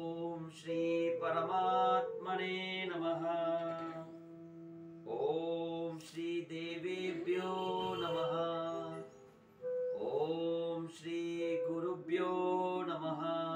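A male voice chanting a Sanskrit Vedic invocation (mangalacharan) in long melodic phrases, with short breaks between lines, over a steady low drone.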